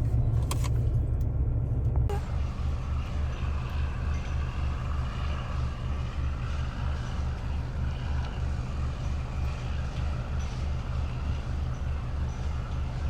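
Chevrolet Colorado pickup truck running, a steady low rumble of engine and road noise, with a couple of sharp clicks in the first second. About two seconds in the sound changes abruptly, a little quieter, and the low rumble takes on an even pulsing.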